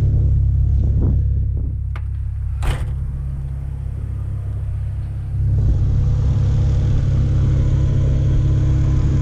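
Acura Integra GSR's B18C1 engine and road noise rumbling in the cabin while driving. The rumble eases off for a few seconds, then picks up again about five seconds in, with a single sharp click near the three-second mark.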